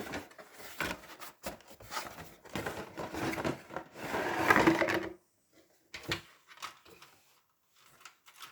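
Plastic wrapping being pulled and torn open by hand, a crackling, crinkling rustle for about five seconds, then a few light clicks and taps as the plastic contents are handled.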